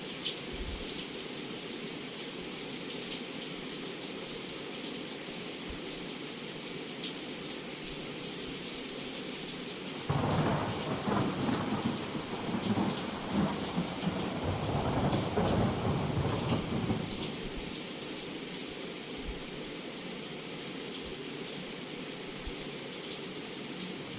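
Heavy rain falling steadily on a window, with sharp drop ticks. About ten seconds in, thunder breaks in suddenly and rumbles for around seven seconds before fading back under the rain.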